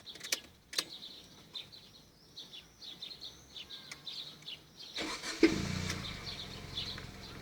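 Birds chirping faintly with a couple of clicks, then about five seconds in a Mazda 626 GE engine starts with a sharp catch and settles into a steady idle. The owner reports a knock from the first cylinder.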